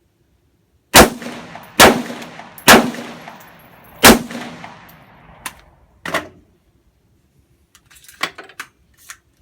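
Four gunshots, the first three about a second apart and the fourth a little over a second later, each trailing off in echo. Softer clicks and clanks follow in the second half.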